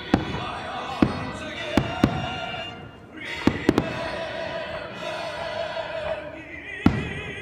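Fireworks bursting in a show: about eight sharp bangs, some in quick pairs and triplets, over loud show music with long held, wavering tones.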